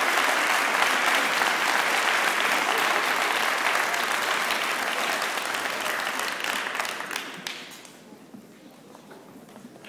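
Cinema audience applauding in a standing ovation, a dense steady clapping that dies away quickly about seven and a half seconds in.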